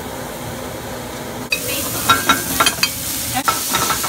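Diced vegetables sizzling in a pan on a gas burner while a spoon stirs them, with a string of sharp clinks and scrapes against the pan. The sizzling and clinking set in about a second and a half in, after steady kitchen background noise.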